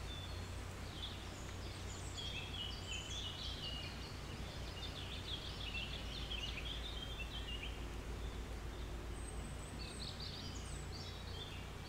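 Small birds chirping and trilling in short bursts, in two spells, over a steady low hum.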